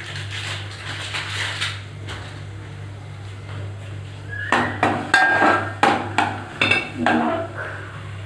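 Metal spoon stirring in an aluminium cooking pot: a quiet start, then a run of sharp clinks and scrapes against the pot's metal wall with brief ringing tones, in the second half. A steady low hum runs underneath.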